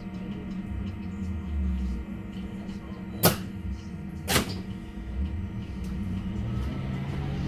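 Cabin of a Heuliez GX337 battery-electric bus: a steady electric hum with several held tones over a low rumble, and two sharp knocks about a second apart near the middle.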